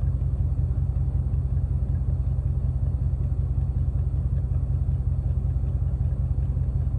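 A steady low rumble with a fast, even pulse, like an engine idling, that cuts off abruptly at the end.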